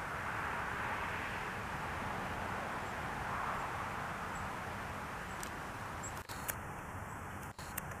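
Steady outdoor background hiss, with a few faint clicks and two brief dropouts in the last couple of seconds.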